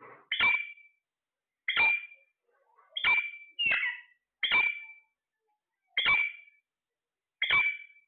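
Alexandrine parakeet calling: a short, sharp call repeated seven times, about one every second and a half, with two calls close together about three and a half seconds in.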